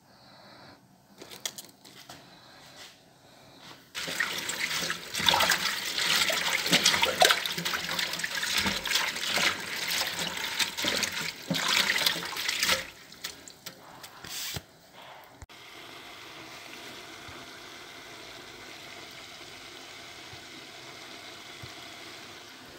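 Tap water running and splashing onto cabbage leaves in a stainless steel sink while they are washed. It starts about four seconds in and cuts off after about nine seconds. A steady, quieter hiss follows.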